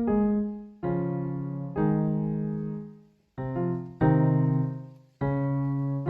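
Keyboard chords played back from a music-making program: five chords of several notes each, every one struck and then fading, with a brief gap a little past halfway.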